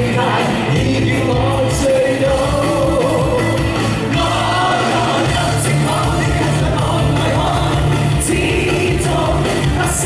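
Live Cantopop band with keyboards and electric guitar playing an upbeat pop-rock song while a male and a female singer sing into microphones, amplified in a large hall.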